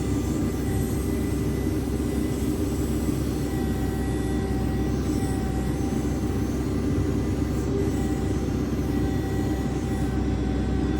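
Diesel engine of a JCB 3CX backhoe loader running steadily.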